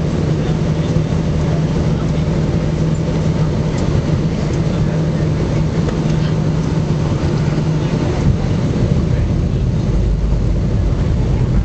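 Jet airliner cabin noise on descent: the steady drone of the engines and airflow, with a low hum that fades about two-thirds of the way through as a deeper rumble builds near the end.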